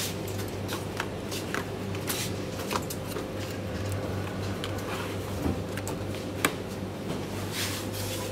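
Supermarket background: a steady low hum with scattered light clicks and rustles of goods being handled, and one sharper click about six and a half seconds in.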